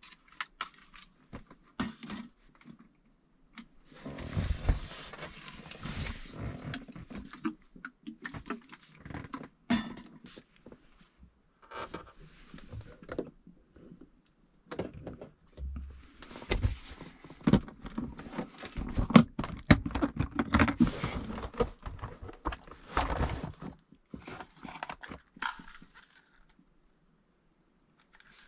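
Irregular handling sounds inside a small car cabin: clicks, rustling and light knocks as camping gear is picked up, moved and set down.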